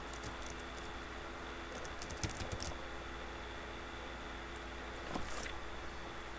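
Computer keyboard being typed on in three short bursts of clicks, over a steady hum.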